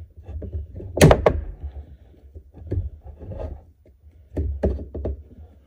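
Handling noise from work on a Fender Champ amp: a string of irregular knocks, clicks and clunks of tools and hands on the chassis, the loudest about a second in and another cluster near the end.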